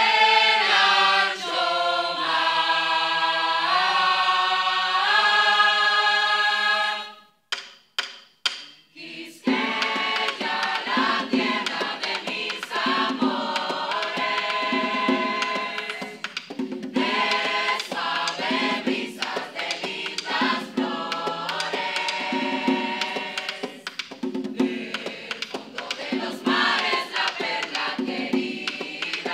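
Mixed choir singing in Spanish, opening with sustained a cappella chords. After a short pause broken by a few sharp clicks, a tambora drum comes in with a steady beat under the choir.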